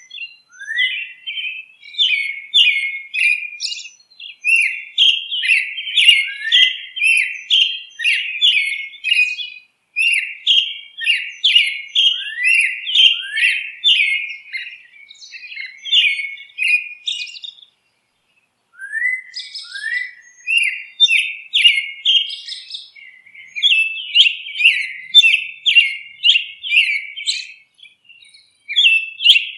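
Birdsong: rapid, high-pitched chirping notes, some sweeping upward, repeated in quick runs with a few short pauses, the longest about eighteen seconds in.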